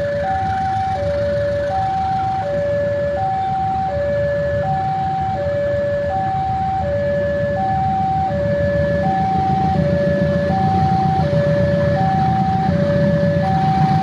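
Electronic two-tone warning alarm, a low and a higher tone alternating steadily about every three-quarters of a second. Beneath it a low rumble grows louder in the second half.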